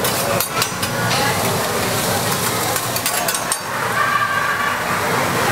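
Food sizzling on a teppanyaki steel griddle while metal spatulas scrape across the plate and clack against it, with a few sharp clacks about half a second in.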